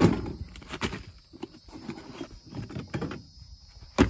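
Items being picked up and set down in a pickup truck bed with a ridged bed liner: scattered knocks and handling noises, with one sharp knock near the end.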